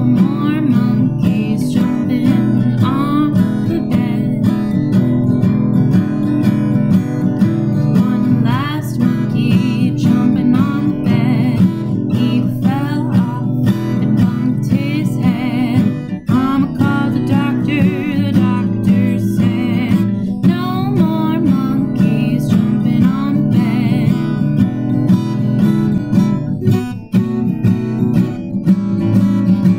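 Acoustic guitar strummed in a steady rhythm, playing the accompaniment to a children's song.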